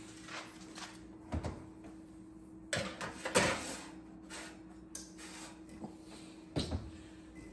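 Kitchen handling noise: a few knocks and clatters, like doors and utensils being moved. The loudest cluster comes about three seconds in, with another knock near the end, over a steady low hum.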